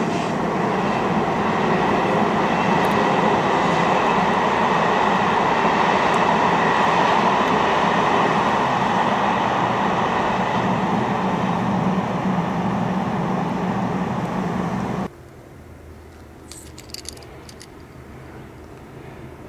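Electric train passing on the railway line with a steady rumble and faint whining tones. It cuts off suddenly about fifteen seconds in, leaving a much quieter outdoor background with a few brief, faint high sounds.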